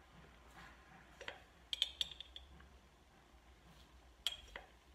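Metal teaspoon clinking lightly against a glass jar and a plastic strainer while scooping dried basil leaves, a few sharp clinks in small clusters.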